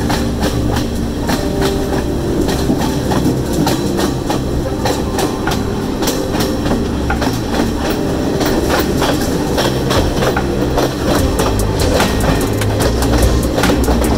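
Passenger train carriage running along the track, its wheels clicking and clattering over the rails in a dense, uneven stream over a steady low rumble.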